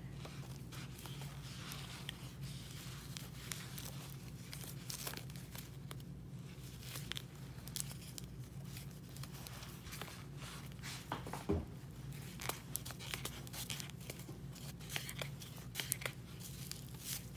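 Cloth and cotton thread rustling and crinkling as red fabric is handled and wrapped with thread to bind a doll, with scattered small ticks and one louder click about eleven seconds in, over a steady low hum.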